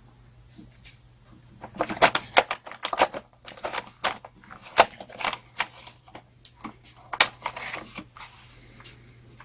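Hard plastic clicks, taps and rattles as a chainsaw's top engine cover is unfastened and lifted off by hand: an irregular run of sharp knocks, busiest in the middle.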